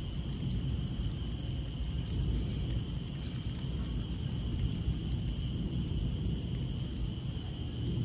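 Heavy rain falling steadily, heard mostly as a low, even rumbling wash, with a faint constant high-pitched whine above it.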